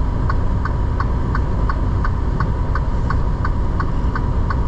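Semi-truck cab at low speed: steady engine and road rumble with a regular ticking about three times a second.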